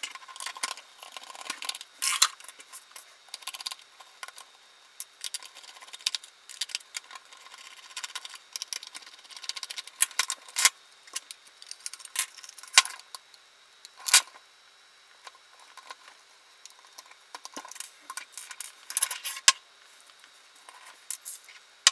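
Toy radio-control transmitter being taken apart with a small screwdriver: scattered sharp clicks and taps of metal on plastic as small screws are undone and set down and the plastic case is opened.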